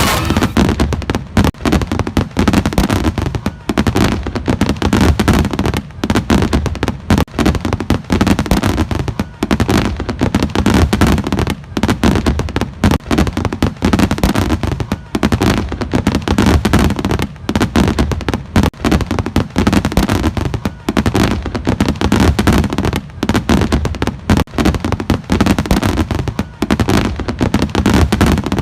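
Fireworks display: a dense, continuous run of bangs and crackles, many overlapping, with the deep low thuds of aerial shells.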